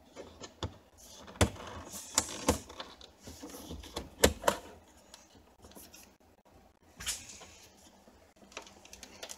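Sharp clicks and knocks of hard plastic car interior trim and wiring being handled, with quieter rustling between; the loudest knock comes about four seconds in.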